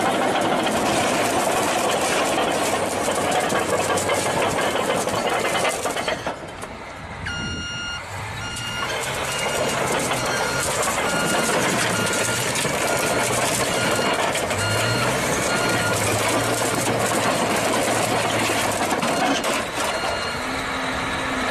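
Road and engine noise with a vehicle's electronic warning beeper sounding a steady series of short beeps, starting about seven seconds in and stopping near the end.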